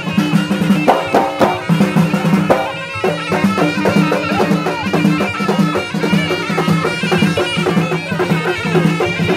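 Moroccan Alaoui folk music: a reed pipe (ghaita) playing a continuous melody over large bendir frame drums beaten in a steady rhythm.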